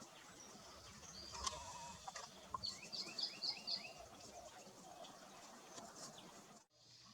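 Canyon towhee calling: a few scattered sharp chips, then a quick run of about five repeated chirping notes in the middle, over a light outdoor hiss.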